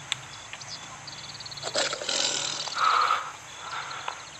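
Tiger sound effect: a rough growling roar about two seconds in, then a shorter second call, over faint high-pitched chirping.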